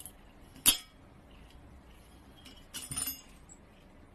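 A single sharp clink, then a brief light metallic jingle about three seconds in.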